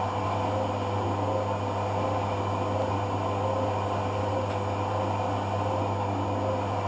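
Hoover AC166 Classica 1200 automatic washing machine running in its cotton rinse programme: a steady motor hum with a faint, gently pulsing tone over it.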